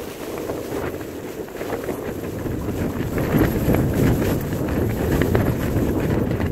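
Wind buffeting a tent, the fabric flapping and rustling in the gusts, which grow louder about two and a half seconds in.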